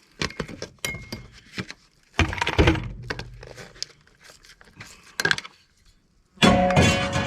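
Scrap metal knocking and clanking as pieces are pulled apart and tossed. There is a loud knock about two seconds in, and a loud clang a little over six seconds in that rings on.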